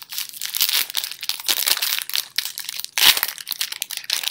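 Trading-card pack wrapper being torn open and crinkled, an irregular crackling with a louder burst about three seconds in.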